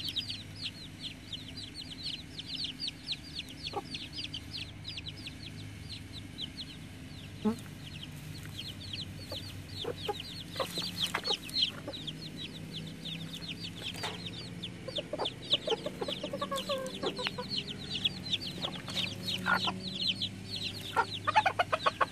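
A brood of chicks peeping rapidly and without pause, with barred hens clucking in a lower voice now and then, mostly in the second half. A steady low hum runs underneath.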